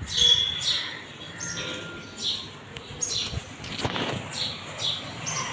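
A bird chirping over and over: short high notes, each falling in pitch, more than once a second. There is a brief noisy scrape about four seconds in.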